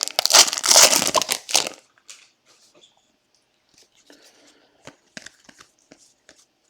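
A trading-card pack wrapper crinkling and tearing as it is ripped open, loud for the first second and a half. Then faint, scattered light taps and clicks of cards being handled.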